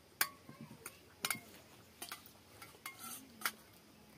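Hands eating water-soaked rice from stainless steel bowls, with several sharp clinks of fingers and rings knocking against the steel.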